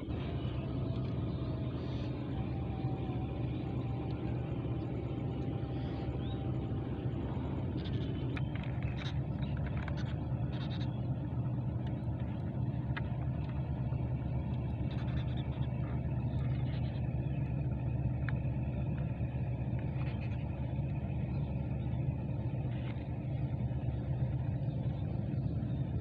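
A steady low engine hum that holds level throughout, with a few faint light clicks and knocks.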